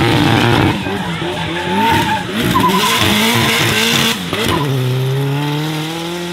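Nissan Silvia S15's turbocharged SR20DET four-cylinder revving up and down through a drift, with the tyres screeching in short squeals. Near the end the engine holds a steady rising pull, growing fainter as the car drives away.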